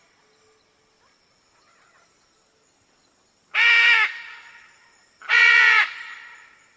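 Two loud, harsh animal calls about a second and a half apart, each lasting under a second.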